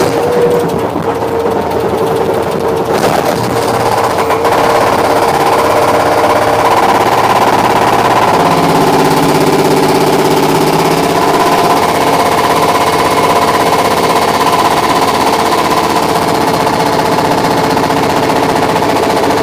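Hydraulic breaker on a Bobcat skid-steer loader hammering concrete in a rapid, steady stream of blows, with the loader's engine running underneath.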